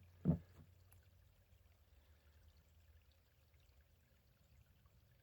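Faint trickling of a small stream running among ice, after a brief low thump at the very start.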